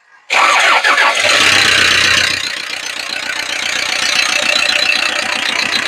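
Toyota Innova engine starting about a third of a second in. It runs fast for about two seconds, then settles to idle with a fast, regular knocking. This is the abnormal noise the mechanic presents as the vehicle's problem, with the cause left undiagnosed.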